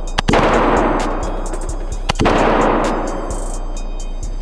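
Handgun fired slowly at an indoor range, a shot about every two seconds, each crack followed by a long echo that dies away; the last shot comes right at the end.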